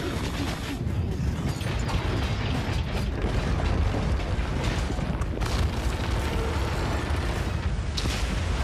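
A high-rise building collapsing: a dense, continuous low rumble of crashing debris, with a few sharper cracks and impacts, one of the sharpest near the end.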